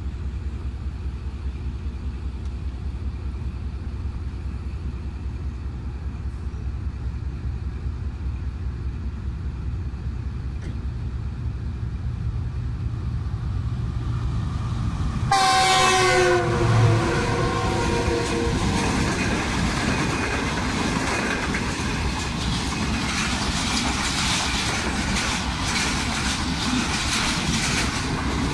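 A low, steady diesel rumble, then about halfway through the GE U40 locomotive of the Karakoram Express sounds a long multi-tone horn blast lasting a few seconds. The express then runs through, its coaches' wheels clattering over the rail joints.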